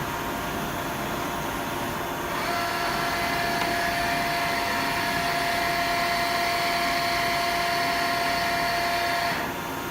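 Okuma ESV-4020 vertical machining center running with a steady mechanical hum. About two seconds in, a steady high motor whine starts and holds an even pitch for about seven seconds, then stops shortly before the end.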